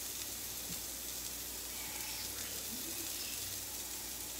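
Faint, steady sizzling of vegetables frying on the hot plate of a Pampered Chef Deluxe electric grill and griddle.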